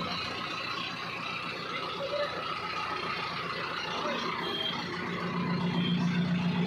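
Mahindra 605 tractor's diesel engine idling steadily, its low hum growing a little stronger about five seconds in.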